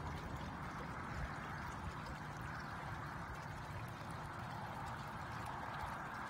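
Faint, steady rush of moving pool water, with a low rumble underneath.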